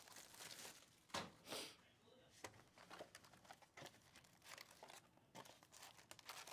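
Faint crinkling and tearing of plastic shrink wrap being stripped from a trading-card hobby box, with two louder rips about a second in. This is followed by light rustling of the cardboard box and foil card packs being handled.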